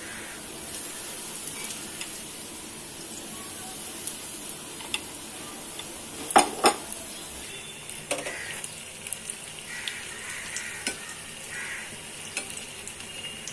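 Potato pakoras sizzling steadily as they deep-fry in hot oil. Sharp metal clinks of a slotted spoon against the pan, two loud ones close together about halfway through and lighter taps after.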